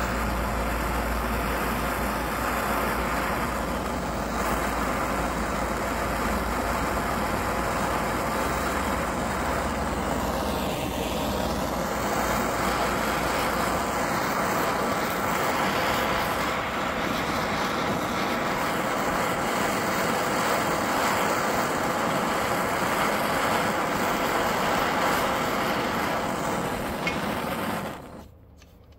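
Handheld gas torch flame hissing steadily while it burns carbon out of a chainsaw's spark arrestor screen and exhaust deflector; the hiss cuts off suddenly near the end as the torch is shut off.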